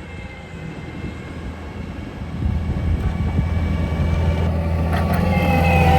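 Cat 289 skid steer's diesel engine working under load while pushing snow with a 10-foot pusher, a steady low drone that gets louder about two seconds in.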